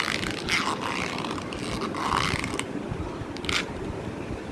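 An old phone case being twisted by hand, giving about five short crunchy scraping bursts, the last and faintest about three and a half seconds in.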